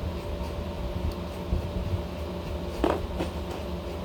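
Steady low mechanical hum with a few constant tones, with one short sound about three seconds in.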